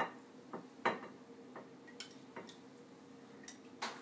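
Metal spoon clinking against a glass bowl: about eight light, irregular taps, the loudest about a second in and just before the end.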